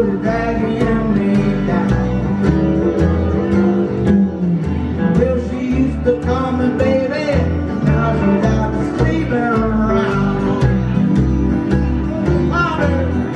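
Live country song: a man singing over a strummed acoustic guitar, with a band keeping a steady beat.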